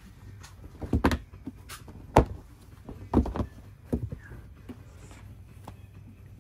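A run of sharp knocks and thumps, one every second or so, the loudest a little over two seconds in, as bolts of fabric are handled and set down on a shop counter.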